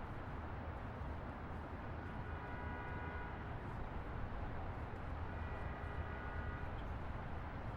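City street traffic: a steady rumble of engines and tyres from passing vehicles, with two faint high held tones about two and five seconds in.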